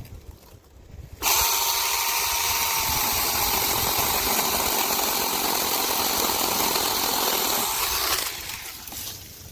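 Seesii DL07 8-inch cordless brushless mini chainsaw running. It starts abruptly about a second in, runs with a steady high whine for about seven seconds, then winds down and stops.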